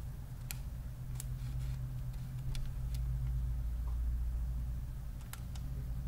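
A handful of short, sharp clicks and snaps as a thin plastic guitar pick is worked around the edge of a laptop's bottom cover, catching on and releasing its plastic clips. A steady low hum runs underneath.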